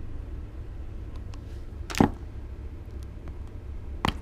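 Two sharp metallic clicks, about two seconds apart, with a few faint ticks between, as pliers work at the spring clip of a new motorcycle chain's master link that won't come off. A low steady hum runs underneath.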